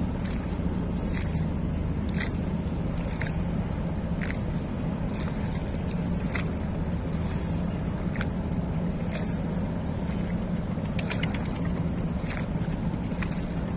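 A boat moving on a river: a steady low engine hum under the rush of water, with short irregular splashes against the hull about once a second.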